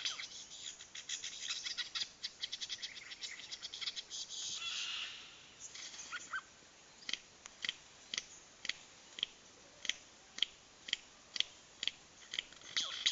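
Superb lyrebird giving its courtship display song: a fast run of sharp mimicked notes and a brief rasp, then an even series of sharp clicks about two a second, the 'blaster'-like sounds of the display.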